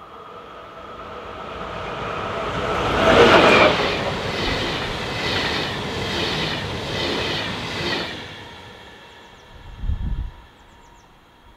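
Electric-hauled passenger train passing close at speed. It builds up to its loudest as the locomotive goes by about three seconds in, then the coaches' wheels clatter in a regular rhythm about once a second, fading away as the train moves off. A short low thump near the end.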